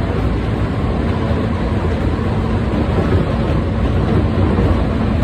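Tokyu 8500-series electric train running at speed, heard from inside the car: a steady rumble of wheels on rails and traction motors.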